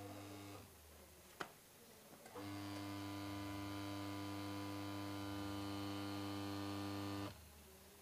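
New capacitor-run wash motor of a washing machine switched on for a test run, giving an electric hum. There is a brief hum and a click first, then a steady hum for about five seconds that cuts off suddenly when the power is switched off.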